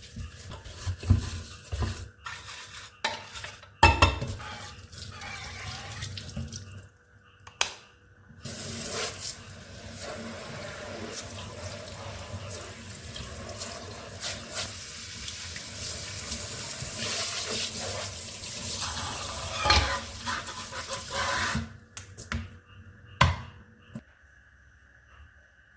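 Dishes and utensils clinking and knocking in a kitchen sink, with a tap running steadily into the sink for about thirteen seconds from about eight seconds in. It is typical of washing up by hand.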